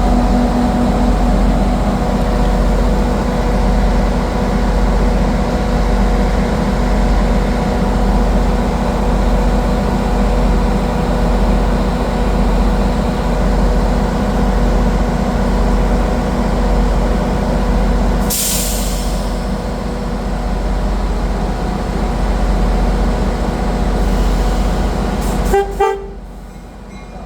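Tri-Rail diesel commuter train standing at the platform, its engine idling with a steady low rumble and a constant hum. About eighteen seconds in there is a short hiss of compressed air, and near the end the sound drops away sharply.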